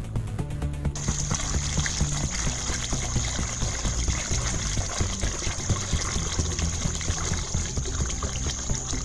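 Water pouring from plastic bottles into a plastic bucket, splashing and gurgling into the water already in it. A steady high-pitched whine comes in about a second in and carries on over the pouring.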